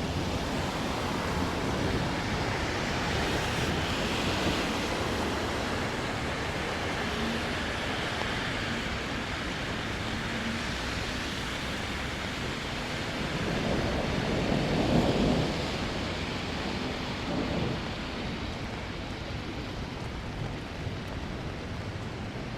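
Steady rain falling during a thunderstorm, with a low rumble underneath. A louder rumbling swell comes about two-thirds of the way through.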